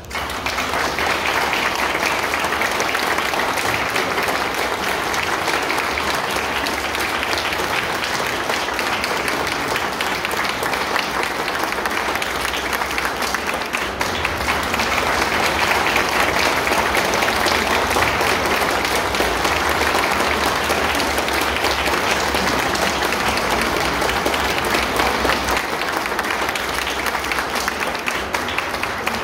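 Audience applauding: dense, steady clapping that breaks out all at once.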